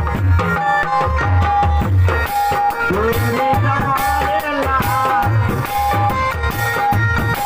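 Instrumental folk music for a nach stage show: a hand drum beats a steady rhythm under a melody instrument, with gliding melody notes around the middle.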